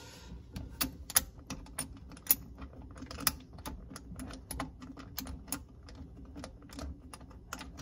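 Irregular light clicks and taps of hard plastic and metal parts as a garbage disposal's discharge elbow and metal flange are fitted to the outlet and a bolt is worked in by hand.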